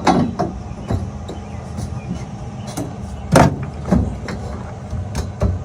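Metal roll-cage tubes knocking and clanking as they are set into place, a handful of sharp knocks with the loudest about three and a half seconds in, over a steady low hum.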